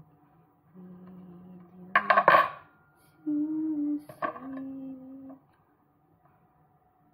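A metal fork clatters down onto a wooden pastry board about two seconds in, followed by a short click a couple of seconds later. A person hums a few held notes softly around it.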